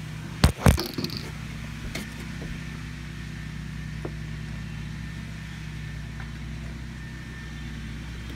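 A steady low motor hum runs throughout. Two sharp knocks come close together about half a second in: the phone bumping against the wooden dock boards as it is pushed down between them.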